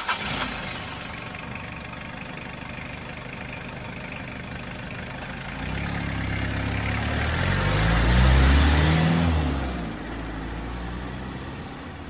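A motor vehicle's engine revving up as it goes by, its pitch rising and the sound growing to its loudest about eight seconds in, then dying away, over a steady background hiss.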